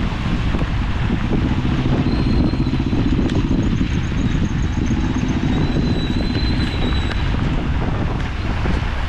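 Wind rushing over the microphone and road noise as a bicycle is ridden on a wet road, steady throughout. A faint thin high whine comes and goes twice in the middle.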